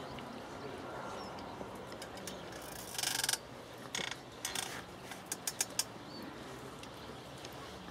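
Faint outdoor background with a short rustle about three seconds in, two softer rustles after it, then a quick run of four sharp clicks.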